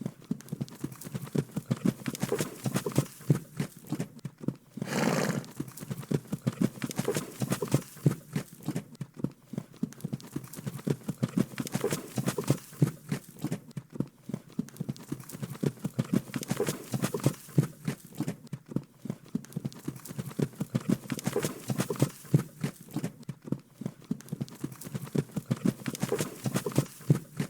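Horses' hooves clip-clopping in a fast, irregular run of knocks, with one longer horse vocalisation lasting about a second, about five seconds in.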